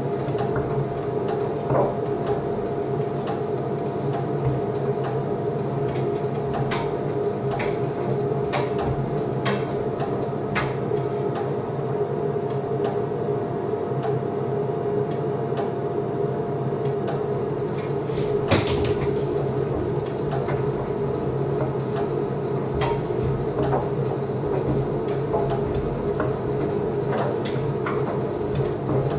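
Beko WDC7523002W washer-dryer tumble-drying: a steady hum of the drum motor and drying fan as the clothes turn over in the drum, with scattered light clicks and knocks, the loudest a little past halfway. A faint steady whine in the hum drops out a little past halfway.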